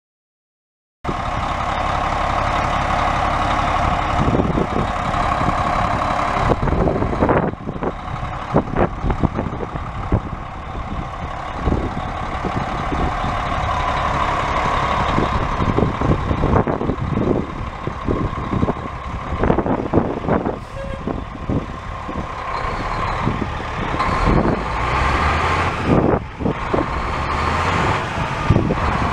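A 1996 Kenworth W900B semi tractor's Caterpillar 3176B inline-six diesel starts sounding about a second in and keeps running as the truck drives and turns, its engine note rising and falling. Scattered clicks and knocks come through over the engine.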